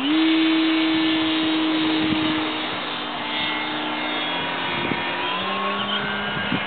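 Radio-controlled scale model Dyke Delta airplane's motor and propeller opening to full throttle for takeoff from grass, a steady pitched buzz that holds as the model climbs away. Its pitch drops lower about five and a half seconds in.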